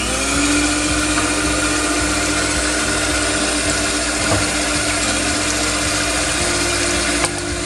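Electric hand mixer running steadily at one speed, its beaters whirring in a stainless steel pot of liquid cake batter; the sound cuts off near the end.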